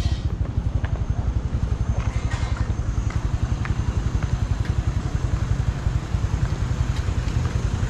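Small motorcycle or scooter engine running close by with a fast, steady low putter, over the general noise of street traffic.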